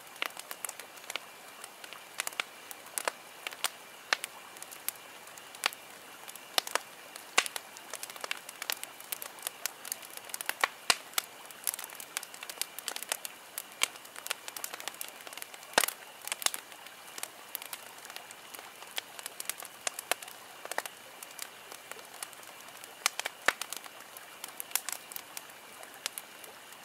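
Wood fire crackling, with irregular sharp pops over a steady hiss.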